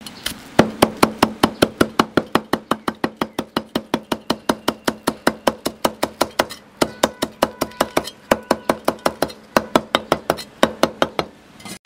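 Chinese cleaver chopping green onions on a thick end-grain wooden chopping block: rapid, even knocks about five a second, with a short break about six and a half seconds in.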